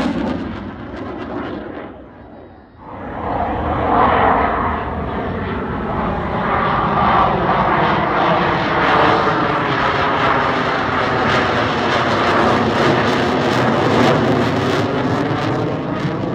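Jet noise from a Boeing F/A-18F Super Hornet's two General Electric F414 turbofan engines as it flies past. The sound drops away briefly about two to three seconds in, then comes back loud and holds.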